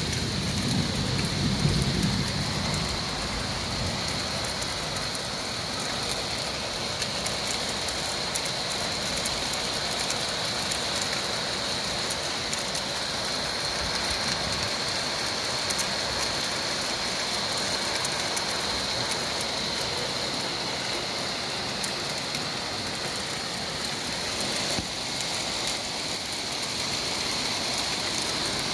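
Heavy rain mixed with hail pelting the street, cars and window ledge: a steady dense hiss full of fine ticks. A low rumble fades out in the first few seconds.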